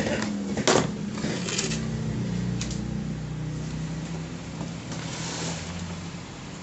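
Clicks and knocks of a CRT television's circuit board and chassis being handled and slid out from behind the picture tube. The loudest is a sharp knock about a second in. A low steady hum sits in the background.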